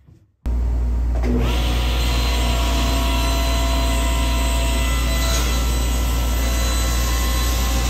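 SawStop table saw running, its blade cutting through a thick walnut block, with a steady low motor hum under the noise of the cut; the cutting noise picks up about a second in.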